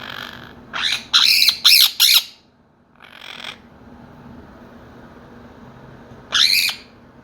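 Quaker parrots (monk parakeets) squawking: a quick run of loud, harsh squawks about a second in, a softer call around three seconds, and one more loud squawk near the end.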